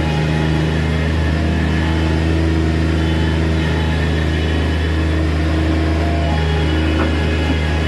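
Bobcat MT100 stand-on mini track loader's diesel engine running steadily under power as it works.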